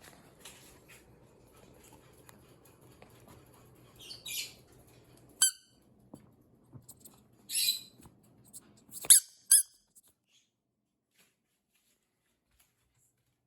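A dog gives a few short, high-pitched squeaks and breathy puffs. The loudest are two squeaks close together near the end, then the sound cuts off abruptly.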